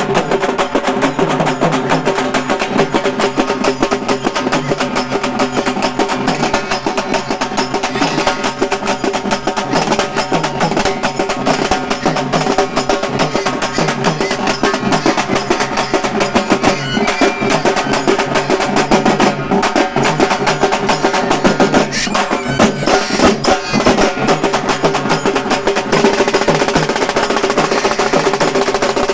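Halgi frame drums struck with sticks in a fast, dense rhythm full of rolls, played without a break.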